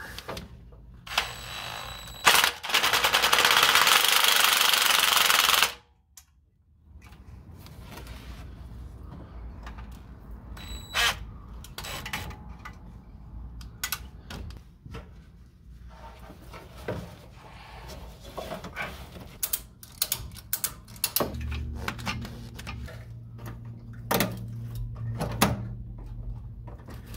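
A strap and transmission jack being worked to secure a fuel tank. A loud rasping noise lasts about three seconds near the start, then scattered clicks and knocks follow.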